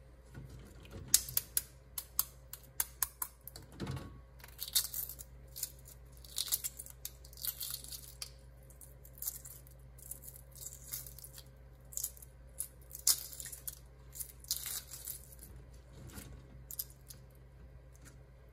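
Shells of hard-boiled eggs being cracked and peeled off by hand: an irregular run of sharp clicks and crackles, densest in the first few seconds and then coming in short clusters as the shell breaks away.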